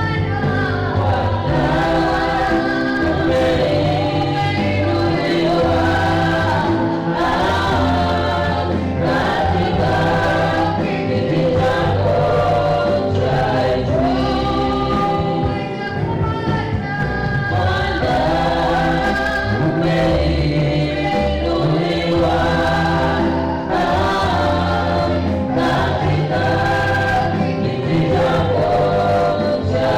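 Gospel choir singing over instrumental backing, with a steady bass.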